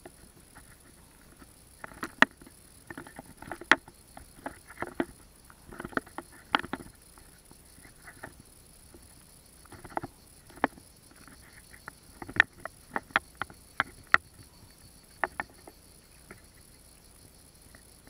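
Footsteps in flip-flops crunching irregularly over loose gravel and pebbles of a dry riverbed, with sharp clicks of stones knocking together.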